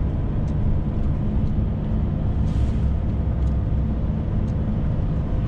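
Heavy truck's diesel engine running steadily, heard from inside the cab as an even low drone, from a DAF XF 530 (PACCAR MX-13 straight-six).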